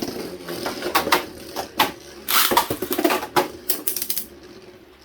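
Two Takara Tomy Beyblade Burst spinning tops whirring and clashing in a stadium. Rapid sharp hits come over a steady whir for about four seconds, then the whir carries on alone.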